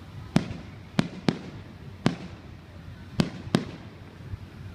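Fireworks exploding: six sharp bangs at uneven intervals, two of them close together near the start and two more past the middle, over a steady low rumble.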